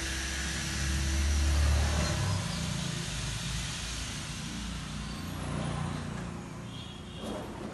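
The small single-cylinder engine of a 1989 Honda H100S motorcycle running, briefly louder about a second in.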